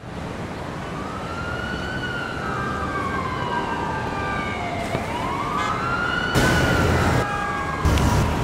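Emergency vehicle siren wailing, sweeping slowly up and down about twice, over low city traffic rumble that gets louder near the end.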